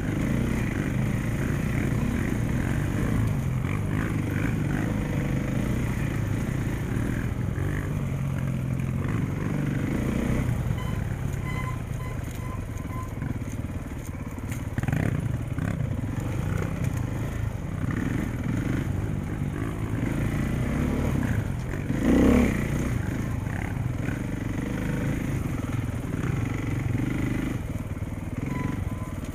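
KTM 450 single-cylinder four-stroke dirt bike engine running at trail pace from the camera bike. There is one loud thump about 22 seconds in.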